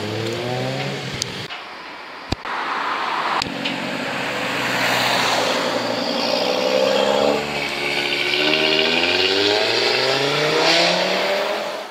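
Cars pulling away from a car meet, engines revving and accelerating, the pitch rising and dropping back as they go through the gears. Two sharp cracks sound about two and three and a half seconds in.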